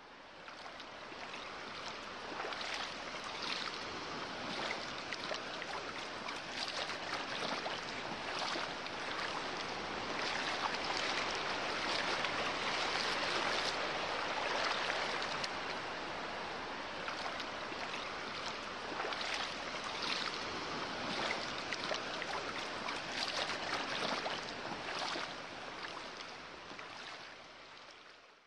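Sea surf washing, a steady hiss of water with small swells every second or two. It fades in at the start and fades out at the end.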